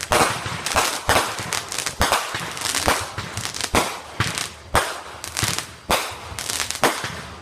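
Fireworks going off in a string of sharp bangs, the loudest about once a second with smaller cracks between, each followed by a trailing echo.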